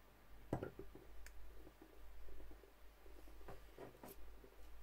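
A few scattered faint clicks and light knocks from handling a bicycle hub and picking up a rubber mallet.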